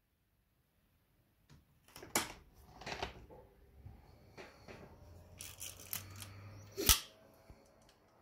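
Ihagee Exakta camera's focal-plane shutter held open on a long exposure, with light handling rattles, then closing with one sharp click about seven seconds in.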